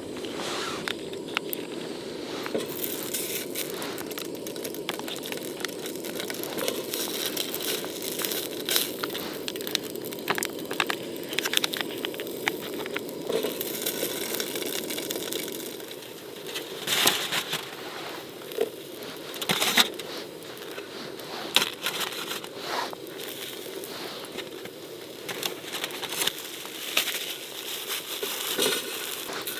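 Irregular crackling and crunching over a steady hiss, with louder separate crunches through the second half.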